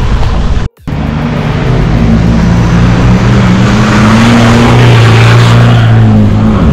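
A four-wheel drive's engine held at high revs as it slides and spins across a muddy dirt clearing, with a rising hiss of tyres spinning and throwing mud. Before that, it starts with a brief stretch of driving noise that cuts off.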